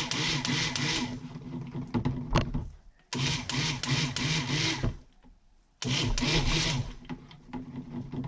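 Immersion (stick) blender running in short bursts in a jug of cold process soap batter, blending in freshly added fragrance oil. It runs three times, stopping for a second or two between runs.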